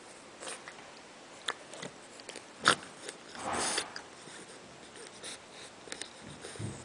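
French bulldog puppy snuffling with its face in a shaggy rug, amid scattered small clicks. There is one sharp click about two and a half seconds in, then a breathy snuffle of about half a second.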